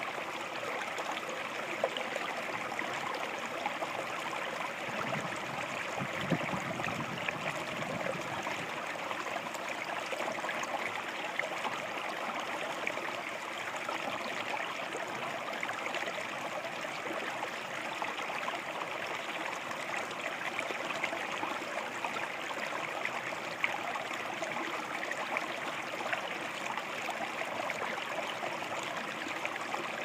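Small mountain brook running over a low rocky step into a shallow pool: a steady splashing of water, with a slightly louder splash now and then.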